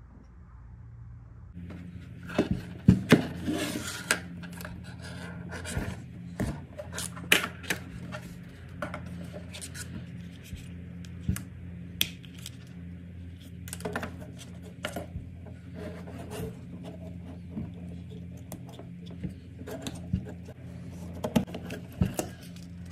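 Hands handling a plastic toy quadcopter drone: rubbing and scraping on the plastic body with many sharp clicks of plastic parts, over a steady low hum that begins about a second and a half in.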